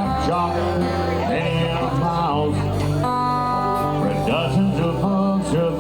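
Band music in a country style: guitar chords with a melody line that bends in pitch over them.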